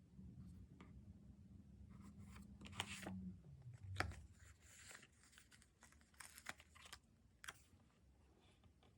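Stickers and paper being handled for diary decorating: crinkly peeling and rustling with several sharp taps and clicks, the loudest about four seconds in. A faint low hum runs under the first three seconds.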